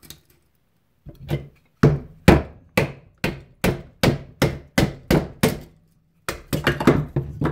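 Wooden baton striking the spine of a Condor Final Frontier knife, driving its Scandi-ground blade down through a stick of very dry hardwood to split kindling. There are a dozen or so sharp knocks at about three a second, then a quicker, denser run of knocks near the end as the stick splits apart.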